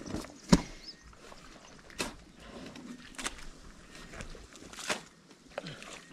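Irregular knocks and squelches of work in a muddy pond bed: wooden planks being handled and rubber boots stepping through wet mud, with one sharp knock about half a second in.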